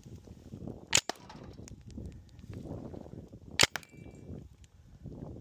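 Tippmann .68-calibre compressed-air launcher firing two sharp shots about two and a half seconds apart.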